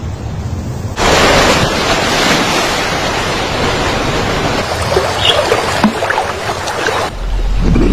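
A low wind-like rumble. About a second in, it switches suddenly to the loud, steady rush of churning river whitewater, which cuts off near the end.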